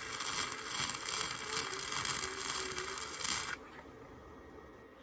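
Electric arc welder crackling and sizzling as a weld bead is laid on the steel clothesline frame, cutting off abruptly about three and a half seconds in when the arc is broken.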